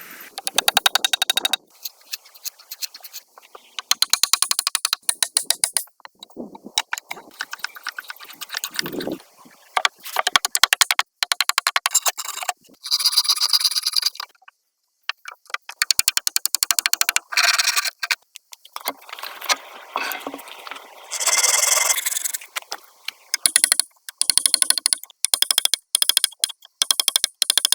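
Repeated scraping strokes, each run a rapid rattle of short clicks lasting a second or two, broken by brief pauses.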